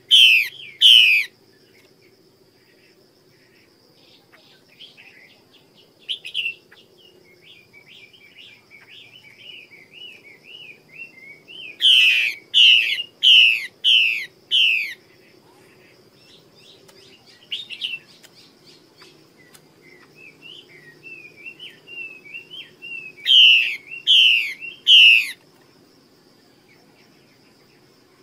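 Female Chinese hwamei calling in three loud runs of harsh, falling notes, about two a second: near the start, around twelve seconds in (five notes), and around twenty-three seconds in (four notes). Soft twittering warble fills the gaps between the runs.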